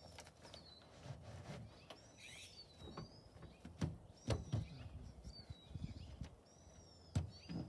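Scattered knocks and rustles of a padded tailgate pad and its straps being handled, with a few sharper knocks around the middle and just after seven seconds in. Small birds chirp briefly several times in the background.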